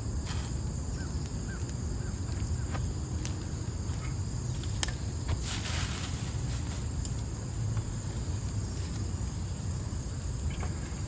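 Steady high insect chorus over a low rumble, with a few scattered sharp clicks, the clearest about five seconds in.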